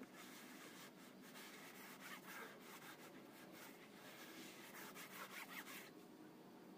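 Faint rubbing of a cloth being wiped over a scooter's textured plastic exhaust cover in uneven strokes, wiping off a matte-finish treatment that has been left to sit. The rubbing stops about six seconds in.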